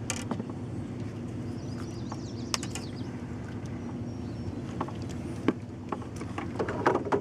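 A boat motor running with a steady low hum, over which come a few sharp clicks and knocks from handling a fish and tackle, with birds chirping faintly about two seconds in.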